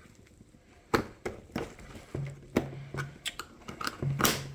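Sharp plastic clicks and scraping as pry picks work under an Audi headlamp's lens retaining clip, about a dozen irregular snaps and taps from about a second in.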